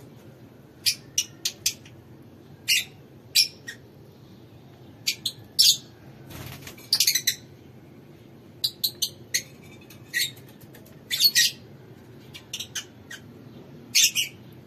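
Lovebirds giving short, shrill chirps, singly and in quick runs of two to four, every second or two.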